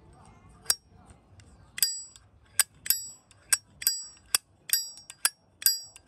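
Brass Zippo lighter lid being flicked open and snapped shut over and over: a dozen or so sharp metallic clicks, roughly two a second after the first second, many of them with a brief high ring.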